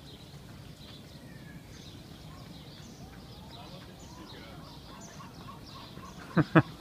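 Small birds chirping faintly in the park trees over quiet outdoor background, then two short, sharp calls close together near the end.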